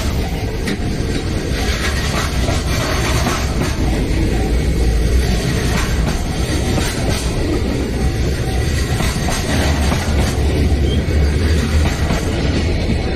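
Freight train passing close by, with a continuous heavy rumble of the wagons and wheels clacking over the rail joints.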